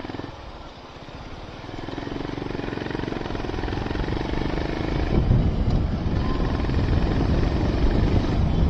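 Honda CB350 RS's air-cooled single-cylinder engine running under way, getting louder over the first few seconds, with wind rumbling on the microphone from about halfway.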